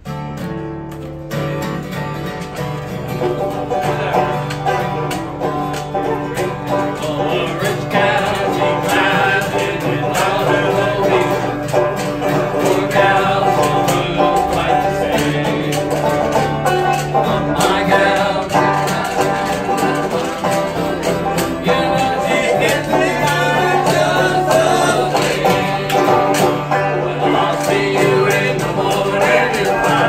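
Acoustic guitar and banjo playing an old-time country song, with men singing along. The music starts right at the beginning and grows louder over the first few seconds.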